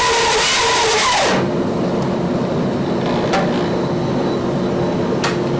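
Bandsaw cutting a glued-up wood blank, its pitch sagging as the blade binds in the cut and bogs down. The cutting noise stops abruptly a little over a second in, leaving a steady hum and two light clicks.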